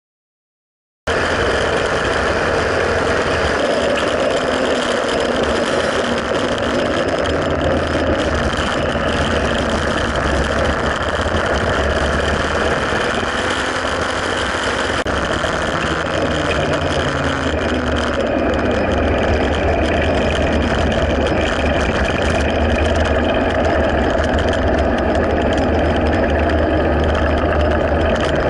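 Motorcycle engine running steadily while riding, recorded by a camera mounted on the bike; it cuts in abruptly about a second in.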